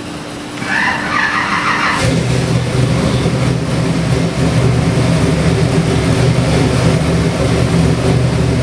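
Chevy 572 cubic-inch big-block V8 with FiTech EFI cranks briefly on the starter and catches about two seconds in. It then runs at a steady, raised fast idle just after start-up, the idle still to come back down.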